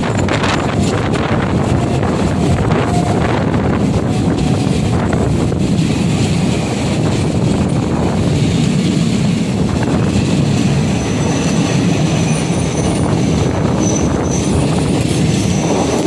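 Passenger train coaches passing close alongside on the adjacent track, heard from another train: a steady, loud rumble and clatter of wheels on rail, with a few sharp clicks in the first seconds and wind buffeting the microphone.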